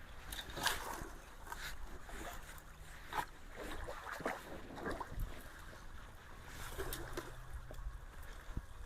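Water sloshing and splashing in a flowing ditch as someone wades and shifts debris, with scattered short knocks and splashes.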